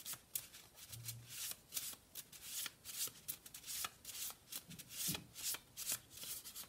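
A deck of oracle cards being shuffled by hand: soft, quick card-on-card slaps and slides, several a second in an uneven rhythm.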